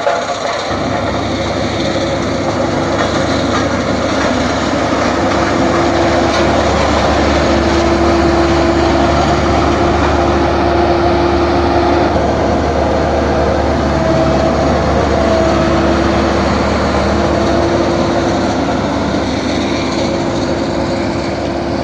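Heavy road-construction machinery running steadily: a diesel engine's rumble and a steady mechanical whine. The deep rumble fades out about two-thirds of the way through.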